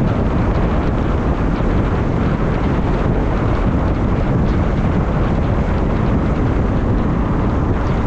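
Steady, loud rumble of wind buffeting the microphone, mixed with the noise of road traffic.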